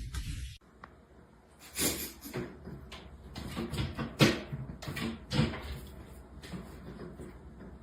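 A series of about half a dozen knocks and bumps spread over several seconds, the loudest about four seconds in.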